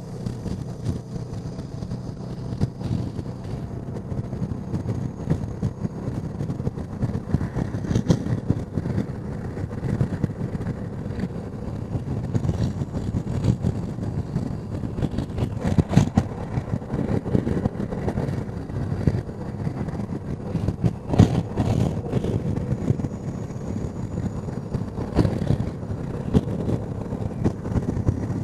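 Honda Deauville NT650V's V-twin engine running steadily while riding, with wind noise over the helmet microphone and a few brief buffets.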